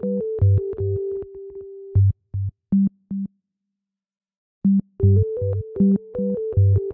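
Background electronic music: synthesizer notes over a steady beat. It drops out for about a second and a half midway, then resumes.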